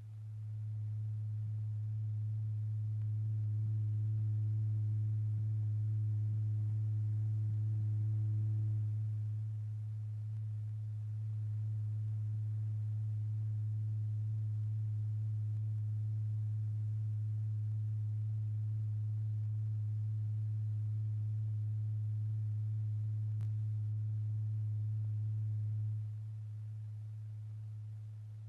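Low, steady pure tone driving a cymatics diaphragm strewn with lycopodium powder. The pitch stays on one note while the volume changes. It swells up in the first second, is loudest for several seconds, eases off about nine seconds in, holds, and drops again near the end. These are amplitude bursts on an unchanged tone.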